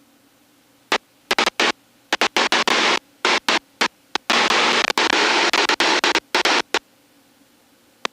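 Loud bursts of rushing noise through the aircraft intercom, switching abruptly on and off many times from about a second in until near the end, with a faint steady hum between them: the intercom's voice-activated microphone keying open on cockpit noise.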